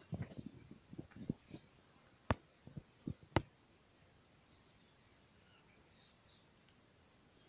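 A scatter of short clicks and soft knocks in the first three or four seconds, two of them sharper about two and three seconds in, then only a faint steady hiss.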